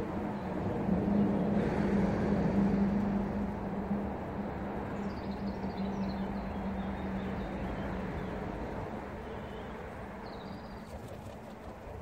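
Low rumble of a passing vehicle with a steady hum, slowly fading away. A few faint high bird chirps come through near the middle and again near the end.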